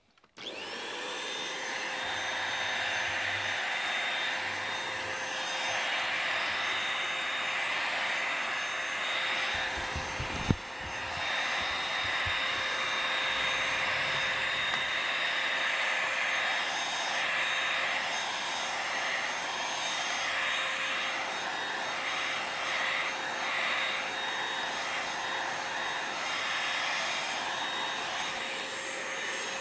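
Cordless stick vacuum cleaner switched on, its motor spinning up within a second to a steady high whine with rushing air as it sucks up clumps of cat hair. A single sharp knock about ten seconds in.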